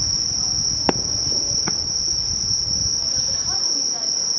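Insects chirring in a steady high-pitched drone, with two sharp distant firework bangs about one and two seconds in.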